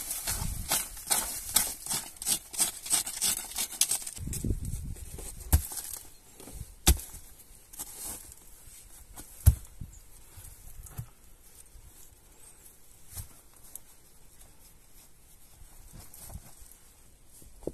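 A small hand tool scrapes and digs into dry soil in quick strokes, about three a second. Rocks are then set in place with a few dull thumps and sharp knocks of stone on stone; one knock, near the middle, is the loudest.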